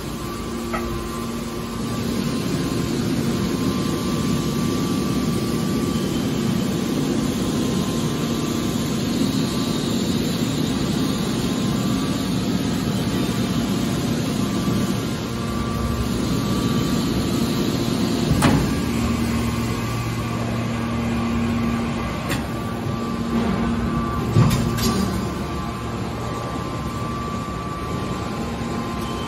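Hydraulic scrap metal baler running: the steady hum of its hydraulic power unit, with two sharp metal clunks, about 18 and 24 seconds in.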